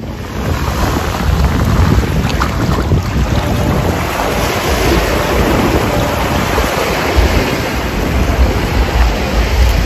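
Strong wind buffeting the microphone over rushing sea water, as heard from a fast-moving speedboat.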